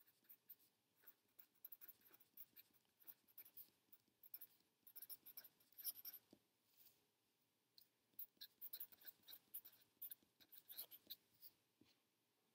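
Faint scratching of a felt-tip marker on paper as words are written by hand in many short, quick strokes. There is a pause of about a second and a half just past the middle, and the writing stops shortly before the end.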